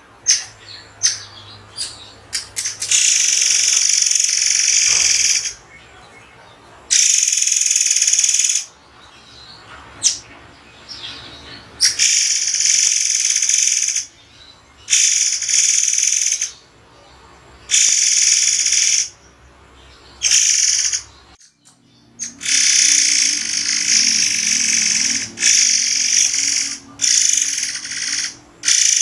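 A murai air calling in repeated shrill, hissing bursts, each about one to two seconds long with short pauses between: the sharp, spaced 'shots' of its natural call. A few quick sharp chirps come first.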